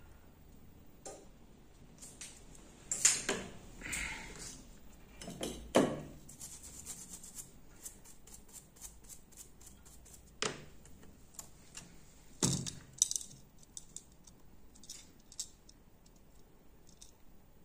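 Bench handling noises: a few sharp knocks and clicks as a small brush and an opened smartphone are picked up and set down on a rubber repair mat. There is a run of quick light ticks in the middle as the brush works over the board.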